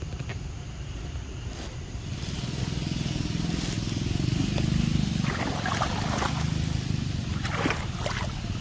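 Low steady engine rumble that swells in the middle, with a few short crackles.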